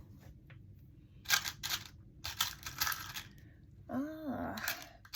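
Small metal jewellery charms clinking and rattling against each other as they are picked through by hand, in several short bursts. A brief hummed 'hmm' comes near the end.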